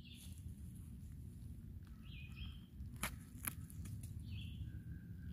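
Woodland ambience: a bird calling with short chirps every couple of seconds and a brief steady whistle near the end, over a low steady rumble. Two sharp clicks about three seconds in.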